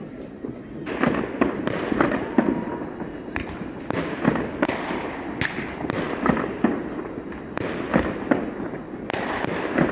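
Fireworks going off: a dense, irregular run of sharp bangs and crackles that starts about a second in.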